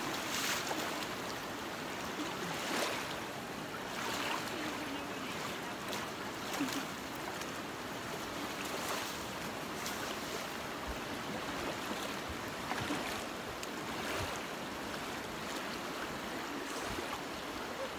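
Fast river current rushing over riffles: a steady wash of moving water with brief louder swells every second or two.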